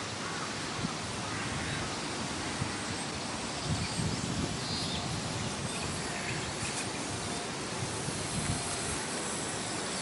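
Steady outdoor background noise, with wind rumbling on the microphone, strongest about four seconds in.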